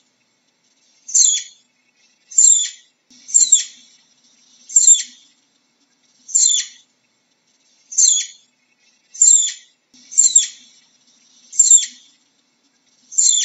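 Flying squirrel calling: a series of short, high-pitched chirps, each falling in pitch, repeated about every second and a half.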